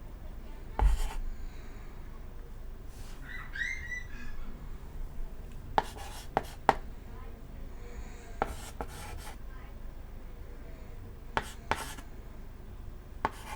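Chalk writing on a chalkboard: scratchy strokes with sharp taps as the chalk strikes the board. A bird gives a short chirp about three and a half seconds in.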